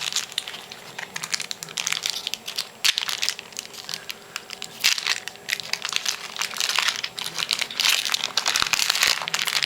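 Crinkling and crackling of a hockey card pack's foil wrapper being handled and opened, in irregular rustling bursts that are busiest about halfway through and again near the end.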